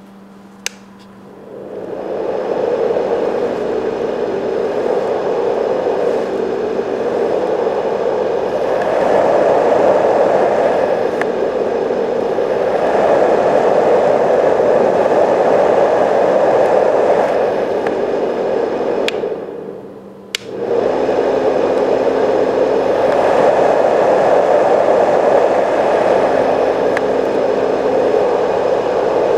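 Marpac Dohm-DS fan-based white noise machine switched on with a click, its fan spinning up over a second or two into a steady rush of air. The tone swells and shifts as its vents are opened and closed, and a faint high-pitched note rides over it. About twenty seconds in a switch clicks and the sound dips briefly before coming back.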